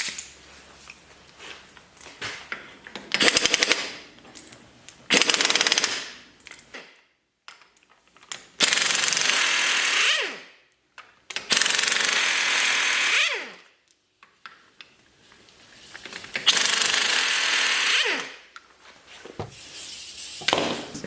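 Impact wrench run in five bursts. The first two are short, with rapid hammering. The last three are longer runs, each ending in a falling whine as the tool winds down.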